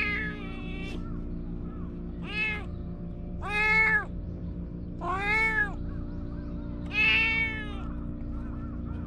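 Cat meowing repeatedly, about five calls a second or two apart, each one rising and then falling in pitch.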